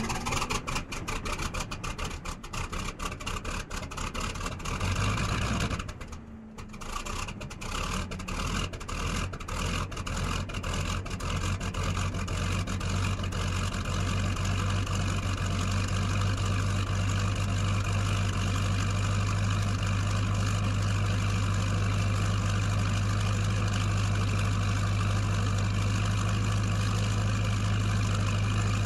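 Vehicle engine starting: uneven firing strokes for about six seconds, a brief cut-out, then it fires again, the strokes quicken and even out into a steady low idle.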